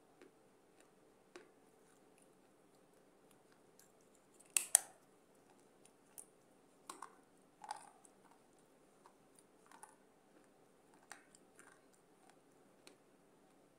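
Close-miked mouth chewing and crunching pieces of baked clay pot: scattered crisp cracks and crunches. The loudest is a sharp double crack about four and a half seconds in, followed by softer crunches.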